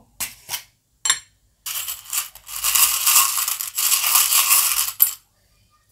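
A round tin of small metal charms being rattled: a few light clicks, then two long spells of dense clinking and jingling with a short break between, ending with a single click.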